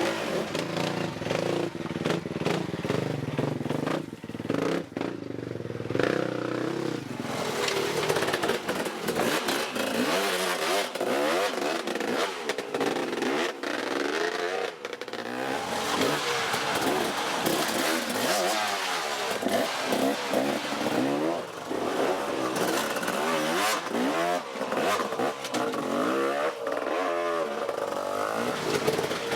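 Off-road dirt bike engines running, fairly steady for the first several seconds, then revving up and down over and over from about seven seconds in.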